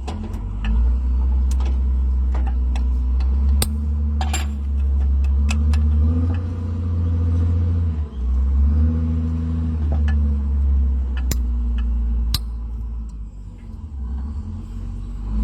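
A machine running with a heavy low rumble and a steady hum that wavers slightly in pitch, dipping briefly about eight seconds in and again near the end, with scattered sharp clicks and knocks.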